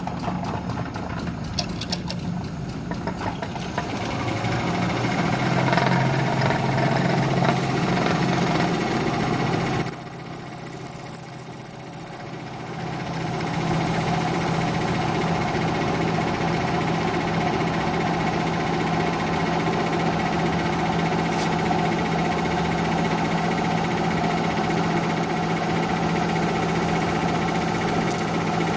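Power drill running steadily, a screw used as the bit grinding into another screw to drill it out. About ten seconds in it gets louder with a high squeal that cuts off suddenly a couple of seconds later, then the drill runs on steadily.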